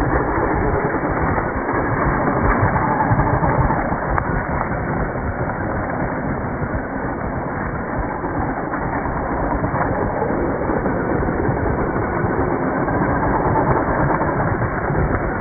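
Tamiya Brat RC buggy with a brushless motor driving hard in circles, its wheels spinning and scrabbling through loose dirt and dry leaves. A continuous rough noise that swells a couple of times as it is throttled.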